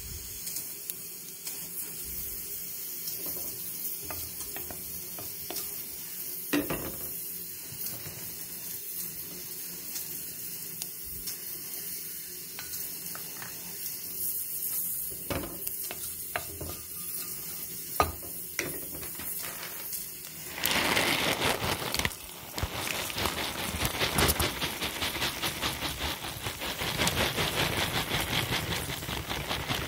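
Oil sizzling in a steel pot with mustard seeds popping, broken by a few sharp clicks. About twenty seconds in it turns to a louder, dense crackling rustle as puffed rice is poured into the hot oil and spices.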